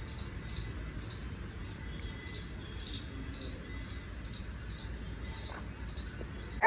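Quiet outdoor background: a steady low rumble with a faint, high chirp repeating evenly about two to three times a second.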